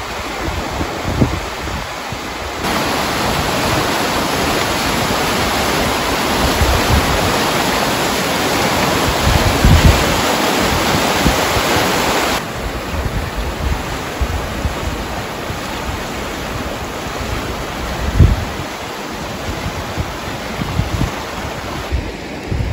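Shallow mountain creek rushing over a rocky bed, a steady rush of water that grows louder for about ten seconds in the middle while filmed from directly above the rapids. Low gusts of wind bump on the microphone now and then.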